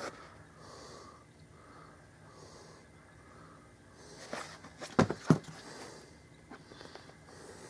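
Soft breathing close to the microphone. About four to five seconds in come a few sharp knocks as a small cardboard box is handled and set down on a plastic lid.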